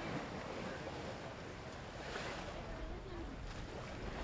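Choppy sea water rushing and splashing past schooners under sail, with wind rumbling on the microphone and faint voices.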